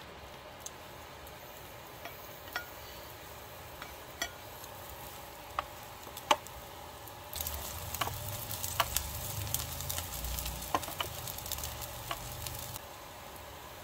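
Sliced green onions sizzling in hot oil in a nonstick frying pan, with scattered taps and scrapes of a spatula stirring them. The sizzle grows louder about seven seconds in and drops back shortly before the end.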